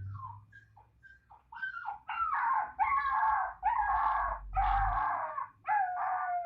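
Puppy crying: a few faint, short whimpers, then from about a second and a half in a run of five or six louder, drawn-out whining cries, the last one sliding down in pitch.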